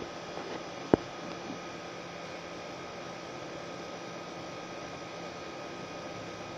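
Steady electrical hum with hiss, with one sharp click about a second in.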